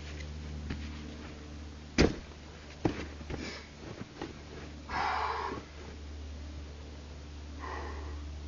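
Climber making a dyno on a rock boulder: a sharp slap or thud about two seconds in, a second smaller one just under a second later, then a few light scuffs and a short rushing noise.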